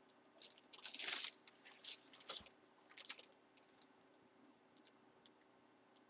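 Plastic packaging crinkling and rustling in several short bursts over the first three seconds or so, as a trading card is handled.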